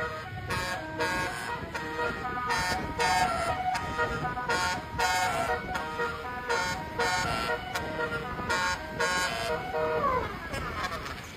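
Basuri "telolet" musical bus horn playing a tune of short multi-tone notes, with a downward-sweeping glide about ten seconds in.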